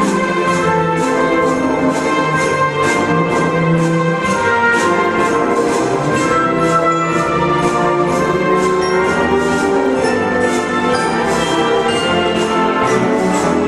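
Orchestral background music with a steady beat.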